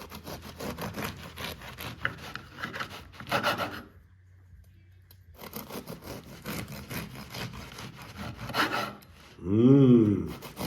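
Bread knife sawing back and forth through a loaf of homemade onion bread in quick scraping strokes. The cutting pauses about four seconds in and starts again a second and a half later. Near the end a person exclaims briefly.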